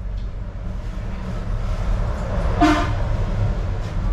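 Steady low rumble of a vehicle in motion, with one short horn honk about two and a half seconds in.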